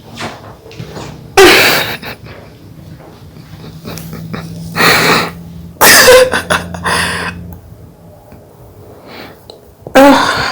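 A person's sudden loud vocal reactions to chiropractic adjustments: four short yelps or gasps, about a second and a half in, twice near the middle, and near the end. A faint low hum runs through the middle.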